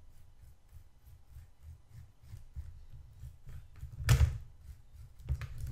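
Faint, rapid scratchy ticks of a brush dry-brushing plastic model tank track links, with one loud knock about four seconds in and a smaller one just after five seconds.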